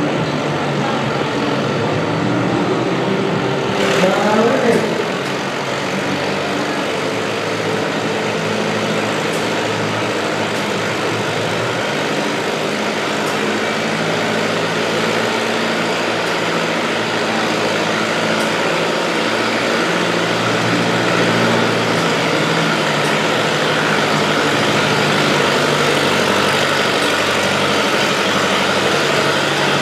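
Antique tractor engines idling steadily at the hitch of a pulling sled, with a brief rising-and-falling tone about four seconds in.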